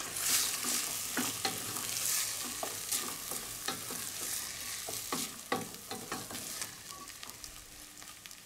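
A wooden spoon stirs cooked pearl barley into onion frying in butter in a stainless steel pot, with a sizzle and irregular knocks of the spoon against the pot. The sizzle is strongest in the first few seconds and grows quieter toward the end.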